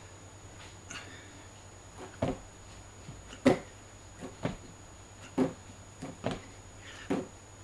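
Thuds and slaps of hands landing on a carpeted floor and on plastic crates during plyometric push-ups, about one landing a second from about two seconds in.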